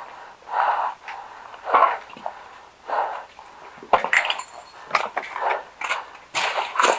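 A person breathing hard close to the microphone, one noisy breath about every second. From about halfway in there are short clicks and rustling.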